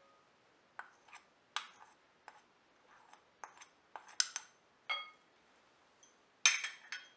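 A metal spoon scraping and tapping a small china saucer to knock mango powder off it, and clinking against a cut-glass bowl: a string of sharp clinks and taps, a few with a short ringing ping. The loudest come about four seconds in and near the end.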